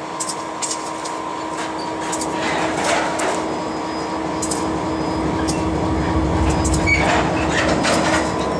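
Inside a diesel locomotive cab: a steady hum over running noise, with scattered sharp clicks and clanks. A low rumble builds about six to seven seconds in.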